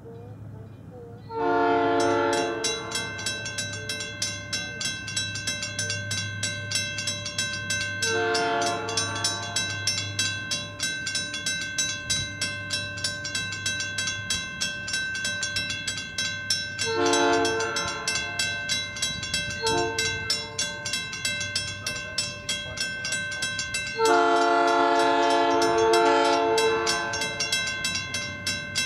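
Western-Cullen-Hayes electromechanical crossing bell ringing with rapid, even strokes, starting about a second in. Over it a South Shore Line train's horn sounds the crossing signal in five blasts, mostly long with one short one near the middle. The final long blast is the loudest as the train draws near.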